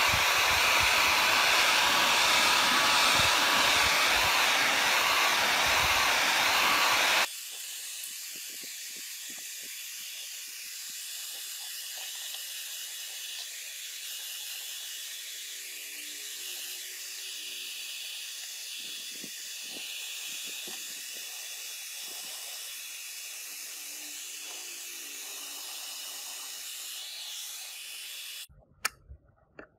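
Handheld hair dryer blowing steadily, loud for about the first seven seconds, then dropping abruptly to a quieter, thinner hiss that cuts off near the end.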